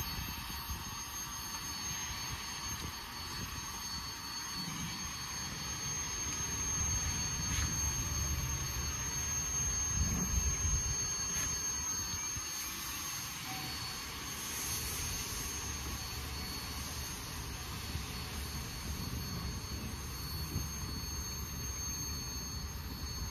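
Jeddo Coal Company #85, a 1928 Vulcan 0-4-0 saddle-tank steam locomotive, working its train slowly away, heard as a steady low rumble.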